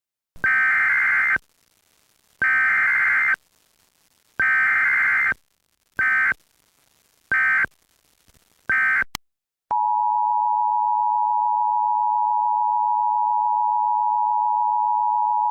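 Emergency Alert System tones: three long and three short bursts of the digital data header, then from about ten seconds in the steady two-tone attention signal.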